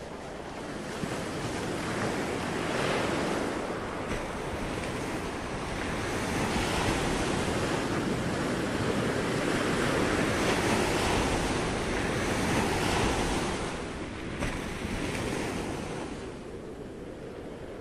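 Ocean waves: a steady rushing of surf that swells and eases over several seconds and falls away near the end.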